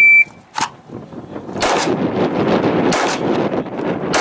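An electronic shot timer beeps once, briefly. Handgun shots follow, the first loud one about a second and a half after the beep and more about three and four seconds in, with a long echoing rumble between them.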